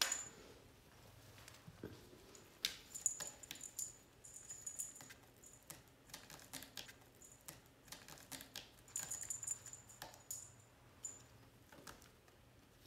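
Kittens playing on a cat tree: irregular clicks, patters and scratches of claws on the sisal-rope posts and paws landing on the carpeted base. A faint high ringing comes and goes among them.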